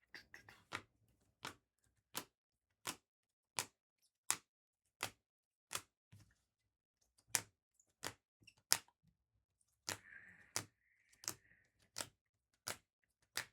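Trading cards snapped down onto a table one after another as they are sorted: about twenty sharp clicks at an even pace, roughly one every 0.7 seconds, with a brief soft rustle about ten seconds in.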